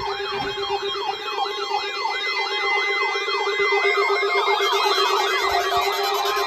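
Several weather alert radios sounding their alarms together, set off by the weekly warning-alarm-tone test: overlapping siren-like tones that sweep up and down about twice a second, over a steady lower tone.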